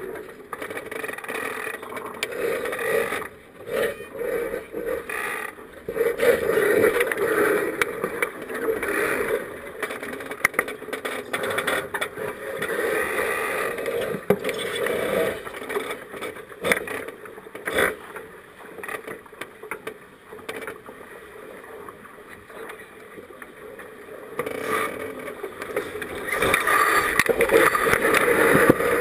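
Water rushing along and slapping against the hull of a small racing sailboat under way, with scattered knocks and clicks from deck gear. The wash swells and eases, growing louder near the end.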